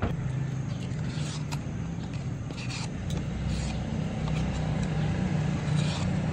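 Steady low engine hum, with short scraping strokes of a hand vegetable peeler taking the skin off a vegetable every second or so.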